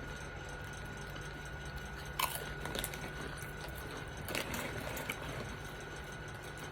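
Tortilla chips being crunched and chewed close to the microphone, with sharp crunches about two seconds in and again around four and a half seconds, over a steady low hum.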